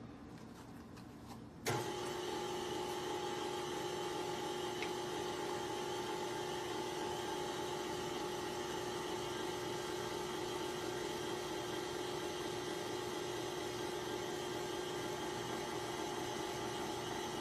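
Stand mixer's motor switched on just under two seconds in, then running at a steady pitch with a constant whine as it drives a pasta-cutter attachment through a sheet of dough.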